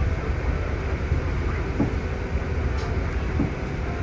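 Steady low rumble of a city bus in motion, engine and tyre noise heard from inside the passenger cabin, with a few faint knocks.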